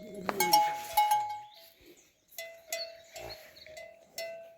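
Bells on livestock clanking and ringing irregularly, several uneven strikes, each leaving a short ringing tone.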